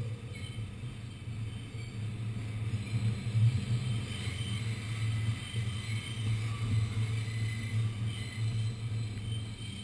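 New York City subway car running, heard from inside the car: a steady low rumble with fainter higher tones coming and going.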